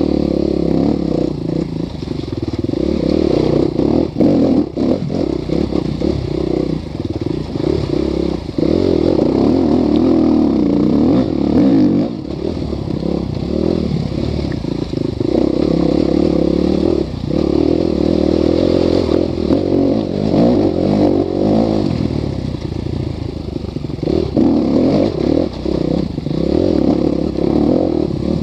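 Enduro motorcycle engine running hard and revving up and down as it rides over a rocky riverbed, heard from on board, with frequent clattering knocks as the wheels hit stones.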